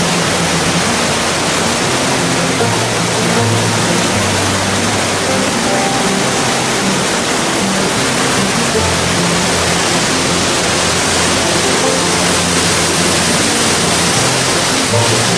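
Steady rushing of a rocky mountain creek tumbling over a small cascade, with soft background music of held low notes.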